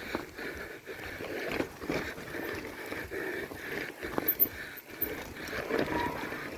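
Mountain bike ridden over rough, muddy ground: irregular rattling knocks and clicks from the bike over a steady noise, with a few sharper knocks about four seconds in.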